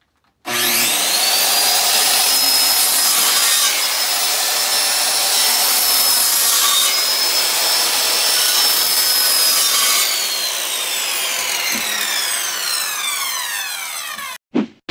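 Skilsaw circular saw with a 7-1/4-inch 24-tooth carbide-tipped blade spinning up and cutting through a wooden board, with a steady high whine over the cutting noise. About ten seconds in the trigger is released and the blade winds down with a falling whine for about four seconds, then stops suddenly; a short knock follows.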